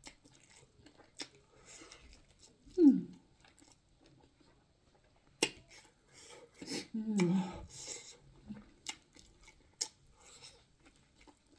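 A person eating, with chewing and sharp wet mouth clicks and crackles, and two short hummed 'mm' sounds, about three and seven seconds in.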